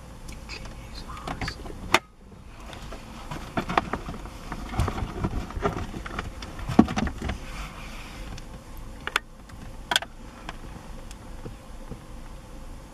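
An African elephant mud-bathing: wet mud slapping and splattering in irregular bursts as it throws it over its head and body with its trunk, with insects buzzing close by and a few sharp knocks.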